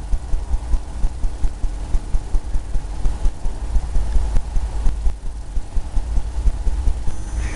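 An oil paintbrush scrubbing paint onto a canvas in small circles, which gives a steady run of soft, low knocks, about three or four a second.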